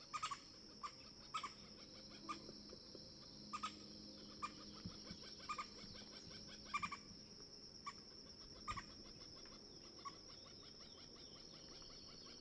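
Guayaquil woodpecker giving short, faint call notes, singly and in quick pairs, at irregular intervals that thin out after about nine seconds, over a steady high-pitched insect buzz.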